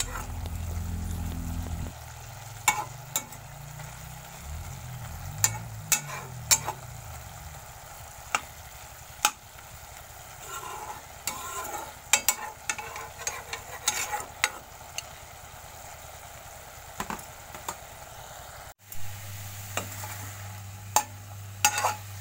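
Steel spatula scraping and clacking against a wok as pumpkin leaves are stirred, over the steady sizzle of the greens simmering uncovered to dry off their water. A low hum sits under it for the first two seconds and again near the end.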